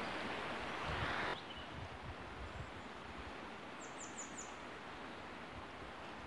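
Quiet outdoor ambience with a steady hiss that drops suddenly a little over a second in, and a bird giving four quick high chirps about four seconds in.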